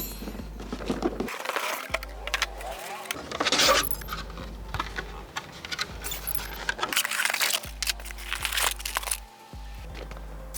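Background music with a steady bass, over irregular rustling and clinking as the bagged parts of an RC buggy kit are handled out of the box.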